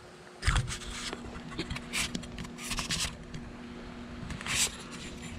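A knock, then scattered scrapes and rustles: handling noise as the camera is picked up and set down in a new spot on the concrete shop floor.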